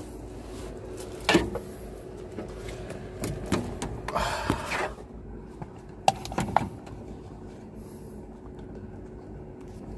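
Handling noise as a phone camera is moved and wedged in place among aircraft structure: scattered knocks and clicks, with a rustling scrape a little past four seconds in, over a steady low hum.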